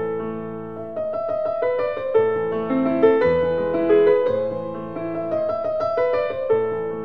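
Background piano music: a melody of struck notes that ring and fade, over lower held notes.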